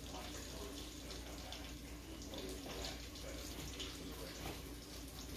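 Steady low rushing hiss from a gas stovetop where buffalo sauce is heating in a frying pan, over a faint steady hum, with faint voices in the background.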